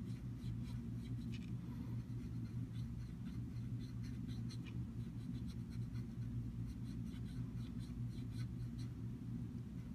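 Faint, quick scratching of small shading strokes on paper as blue colour is worked into a drawing, over a steady low hum.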